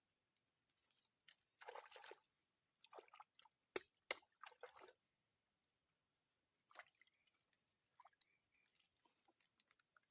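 Crickets chirring in a steady high drone. Short faint rustles and splashy handling noises come about two to five seconds in, with two sharp clicks close together about four seconds in and one more rustle near seven seconds.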